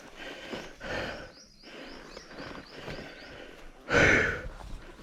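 A person breathing hard in heavy, breathy swells close to the microphone, the loudest exhale about four seconds in.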